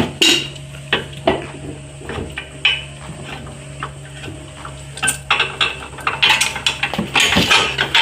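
Metal tools and parts clinking and clattering in a scatter of light knocks, busier in the last few seconds.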